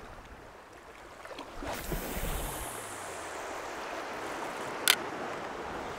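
Small sea waves washing over a rocky shoreline, coming up about two seconds in and holding steady, with one sharp click near the end.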